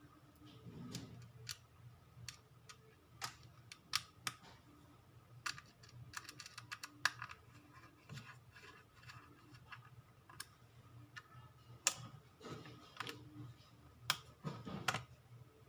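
Faint, irregular clicks and taps of a small screwdriver and tiny screws being driven in to fix an SSD into a laptop drive caddy, with a few louder clicks near the end.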